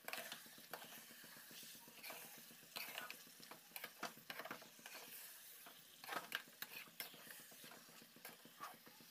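A steel spatula stirs and scrapes thick chicken curry around a metal kadai in irregular strokes, with a faint sizzle from the masala frying as it is sautéed until the oil separates.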